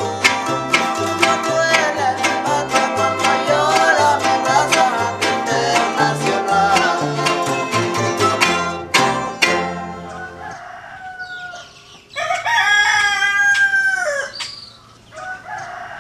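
Plucked-string music over a steady bass line ends with a final strum about nine seconds in. Then a rooster crows once in one long call, and short clucks follow near the end.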